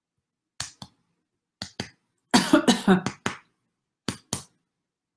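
A woman's short, sharp coughs, mostly in pairs, with a longer run of coughing about halfway through.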